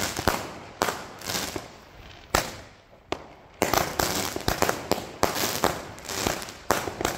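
Fireworks going off: an irregular series of sharp bangs and crackles. There is a short lull around three seconds in, then a dense run of bangs from about four seconds in.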